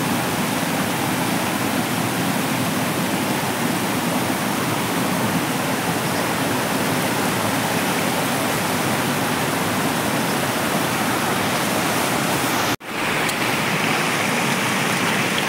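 Rushing water of a stream or small waterfall, a steady loud hiss that drops out for an instant near the end.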